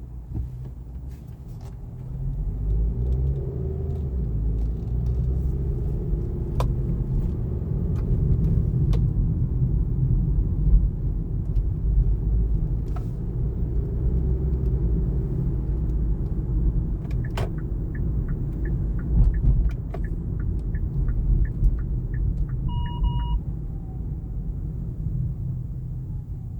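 Road and tyre rumble inside a 2019 Kia Niro's cabin while driving, getting louder about two seconds in. Past the middle comes a run of quick, even ticks, then a short two-tone electronic beep.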